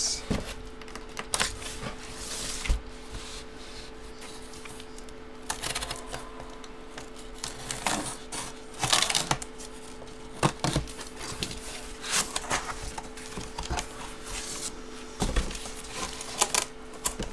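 Cardboard sheets and photo packaging being handled and slid about while a box of large autographed photos is unpacked: irregular rustling and scraping with scattered light knocks. A faint steady hum runs underneath.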